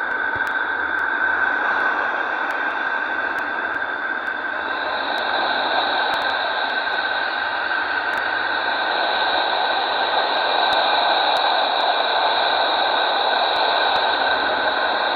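NASA's "sound of Neptune": space recordings made with electromagnetic instruments and converted into audio, heard as a steady static-like hiss, like someone breathing heavily down a phone line. A brighter, higher band of hiss comes in about five seconds in.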